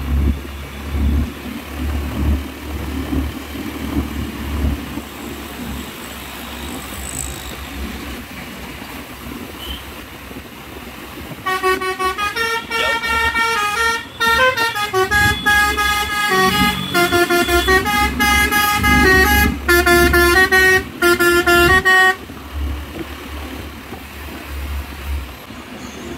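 A cement mixer truck's telolet horn, a multi-note musical horn, plays a stepping tune for about ten seconds, starting about halfway through. Under it the truck's engine runs low and steady.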